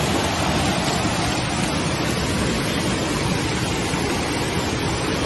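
Floodwater torrent rushing down a street: a loud, steady rushing noise.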